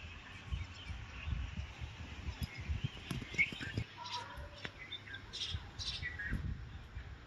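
Birds chirping in scattered short calls, with a few brief whistled notes, over a low irregular rumble.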